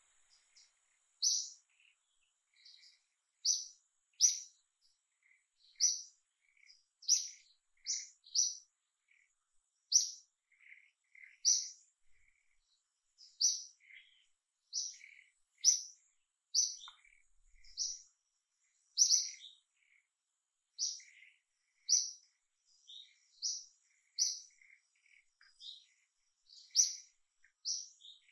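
A small bird chirping over and over: short, sharp, high notes, roughly one a second, with a few quieter notes in between.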